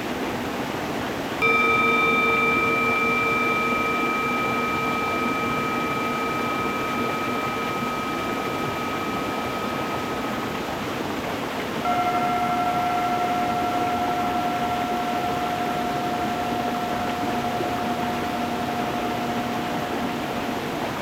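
Two singing bowls struck one after the other, about ten seconds apart, each ringing out in a long, slowly fading tone of several pitches; the second is higher. Under them runs the steady rush of a stream flowing over stones.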